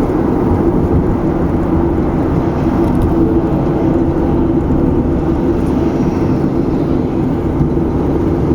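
Steady low rumble of a car driving, engine and tyre noise on the road.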